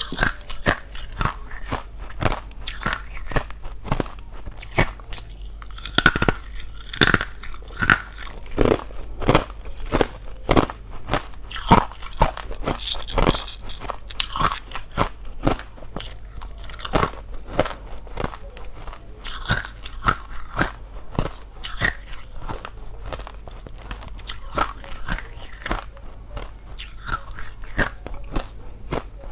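Thin-walled hollow ice being bitten and chewed close to the microphone: a dense, irregular run of sharp crunches and cracks.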